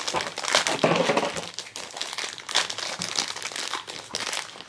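Crinkly yellow wrapper of a Shopkins Wild Style pet pod crackling and rustling as hands peel and crumple it off, in a rapid run of short crackles.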